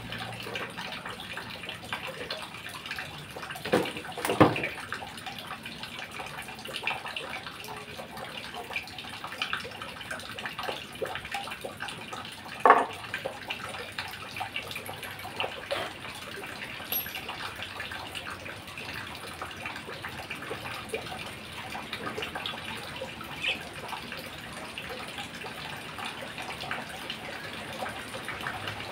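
Small clicks and a few sharp knocks from hands working on a hand-held electric drill, its motor off, over a steady hiss.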